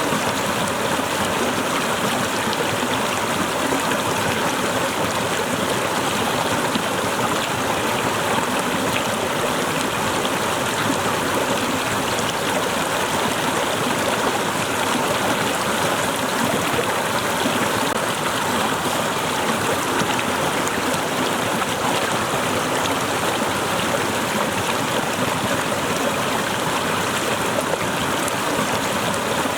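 Small waterfall: water falling and splashing steadily, an even rush with no breaks.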